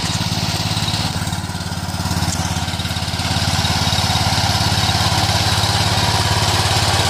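Sears Suburban garden tractor's engine running steadily under load, pulling a trailer loaded with a heavy stone up a slope in low gear. It grows a little louder about halfway through.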